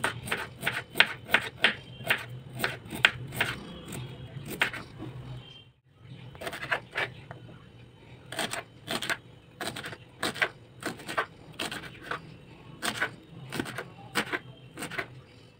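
Kitchen knife chopping vegetables on a wooden cutting board: a steady run of sharp knocks, about two to three a second, first slicing a carrot and then, after a short break about six seconds in, chopping green beans.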